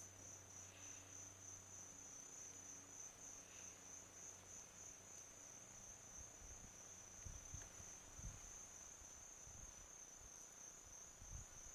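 Faint crickets trilling steadily in a continuous high chirr. A few soft low rumbles come in from about halfway.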